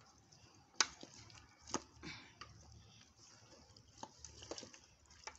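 Wooden spoon knocking and scraping against an aluminium cooking pot while stirring chicken pieces: two sharp knocks in the first two seconds, then fainter taps.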